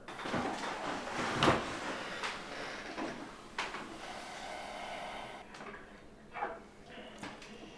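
Knocks, scrapes and clinks of a meal at a kitchen table, a fork working on a plate, with a sharp knock about a second and a half in and lighter clicks near the end.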